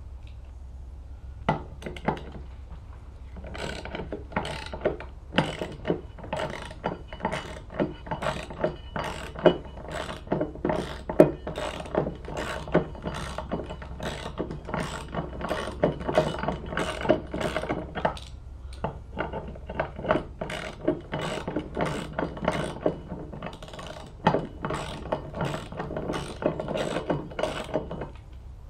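Hand ratchet wrench clicking in a steady rhythm of about two clicks a second as the mower's blade bolt is loosened and unscrewed, with a brief pause about two-thirds of the way through.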